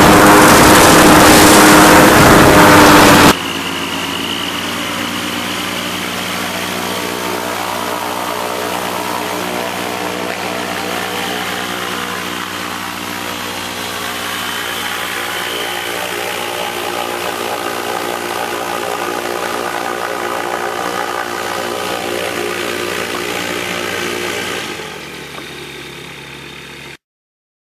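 Powered parachute engine and propeller, very loud with rushing air as heard on board for the first few seconds. Then, heard from the ground, the engine runs steadily at low power as the craft taxis, and it grows fainter near the end before stopping suddenly.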